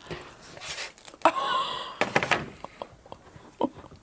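Handling noises: rustling and scraping with a few sharp clicks, in the second half, as a cast resin panel and its foam-board mold pieces are handled on a table.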